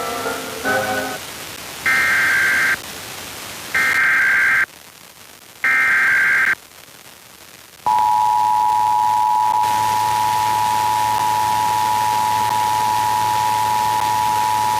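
Emergency Alert System test over FM radio. Three short bursts of the SAME data header, about a second apart, each a raspy burst of warbling tones. About eight seconds in the steady two-tone EAS attention signal starts and holds. A bit of program music ends in the first second.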